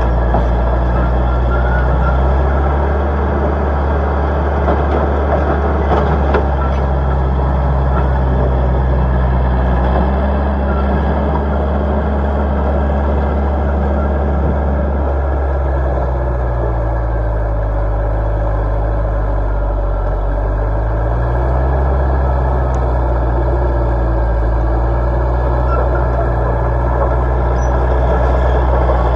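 1971 Caterpillar 941 track loader's diesel engine running hard as the machine dumps a bucket, reverses and pushes into a dirt pile. The engine pitch drops about halfway through and comes back up a few seconds later.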